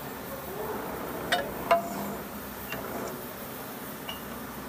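A bent steel plate knocking against the die of a hydraulic press's bending attachment: two sharp metallic clinks close together about a second and a half in, over a steady background noise.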